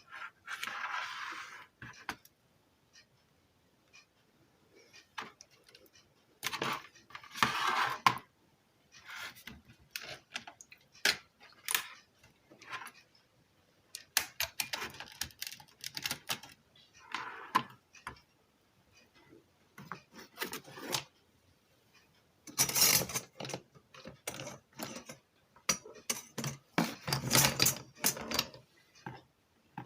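Irregular clicks, taps and rattles of hand tools and small metal parts being handled at a workbench, with denser bursts of handling noise a few times.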